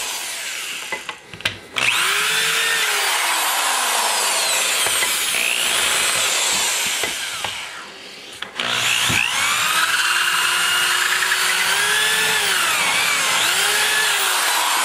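Die grinder with a small cylinder bit grinding the cast-iron combustion chamber around a valve-guide boss, its whine rising and falling as it loads against the metal. It stops briefly twice, early and about halfway through. The pass rounds off the sharp edges at the top of the guide.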